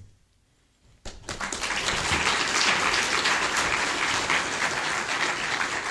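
An audience applauding. The clapping starts about a second in after a brief hush, then stays full and steady.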